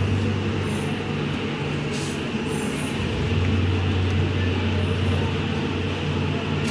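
Street traffic with a vehicle engine running close by: a steady low engine hum over continuous road noise.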